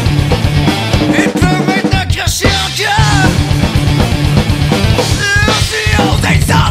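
Loud, heavy rock song: a full band playing with a fast, driving drum beat.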